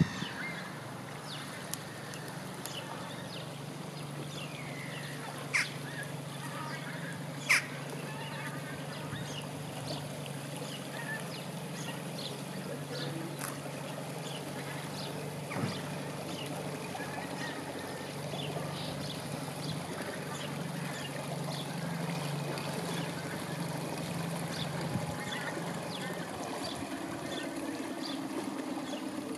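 Low steady hum of a distant engine, shifting slightly higher in pitch near the end, with two short sharp sounds about six and eight seconds in.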